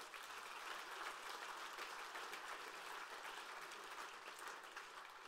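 Audience applauding: steady, faint clapping from a hall crowd.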